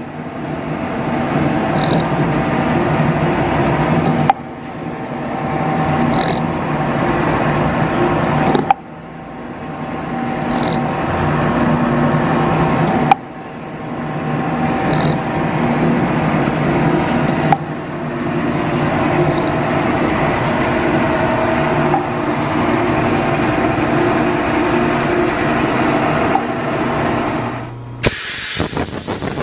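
1897 metal planer, driven from a steam-powered line shaft, running through its strokes about every four and a half seconds as it cuts a steel pad, with a sharp knock at each table reversal over a steady whine of gears and belts. Near the end the sound changes abruptly to a harsh hiss.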